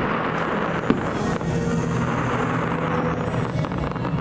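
Aerial fireworks bursting, with a sharp bang about a second in, over the fireworks show's accompanying music played on the park's loudspeakers.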